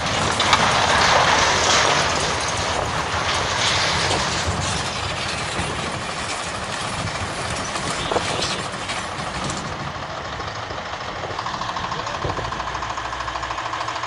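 Heavy truck and road traffic noise, loudest in the first few seconds and then settling to a steady rumble. Near the end a steady pulsing tone comes in.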